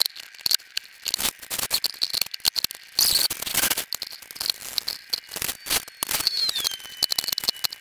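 Transmission-pan bolts being started by hand into the pan over a new gasket: rapid, irregular small metallic clicks and rattles. Near the end a brief high squeak glides down in pitch.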